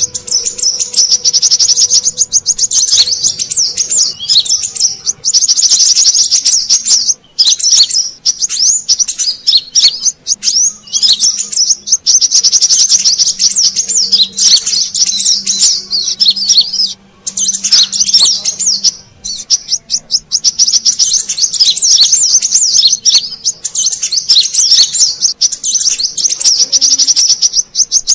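Brown-throated sunbird (kolibri kelapa) calling in an agitated way: rapid, high, dense twittering in long phrases, each broken by short pauses. It is a lure call played to attract wild sunbirds.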